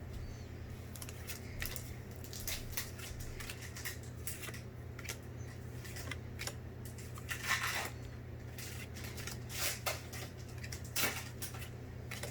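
Pokémon trading cards and a foil booster pack being handled: a string of short rustles and crinkles as the pack is opened and the cards are slid and flicked through, over a low steady hum.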